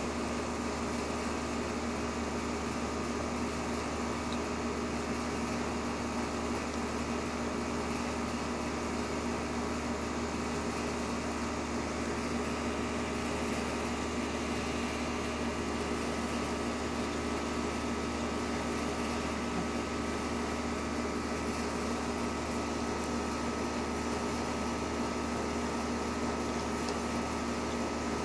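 Steady, unchanging mechanical hum made of several constant tones over a noisy drone, with no breaks or sudden sounds.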